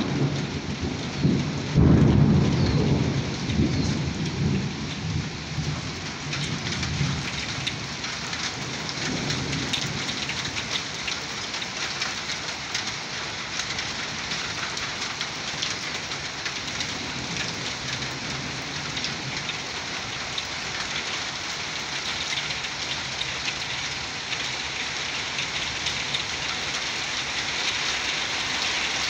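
Rain falling steadily, with a rolling clap of thunder at the start that fades out over the first several seconds and fainter rumbles of thunder later. The rain gets slightly heavier near the end.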